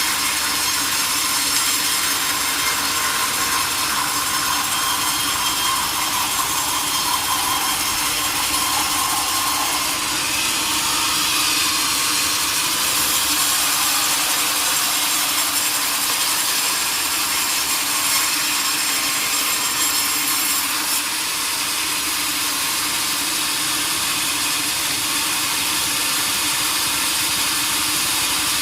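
Sawmill saw cutting steadily through a large log: a continuous, high-pitched hiss of the blade in the wood over a steady machine hum.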